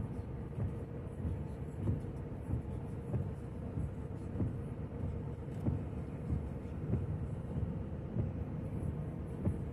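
Car driving on the road, heard from inside the cabin: a steady low rumble of road and engine noise with small thumps every second or so.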